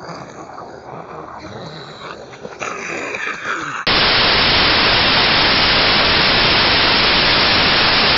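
A few seconds of quieter, uneven handheld-camera audio, then about four seconds in a sudden switch to loud, steady TV-style static hiss, a white-noise glitch effect.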